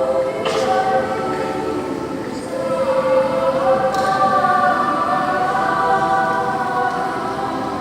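Mixed children's choir singing in parts: several voices hold and move chords together, with crisp sung 's' consonants about half a second and four seconds in.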